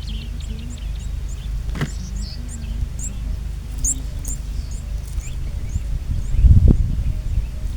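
Small birds chirping and twittering outdoors, many quick high notes throughout, over a steady low rumble. There is a sharp click about two seconds in and a louder low thump-like rumble near the end.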